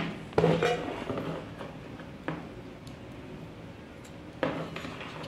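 A few light knocks and clicks of a circuit board and small tools handled on a workbench while a MOSFET is fitted into a switch-mode power supply board: about half a second in, two seconds in and four and a half seconds in, over a faint steady hum.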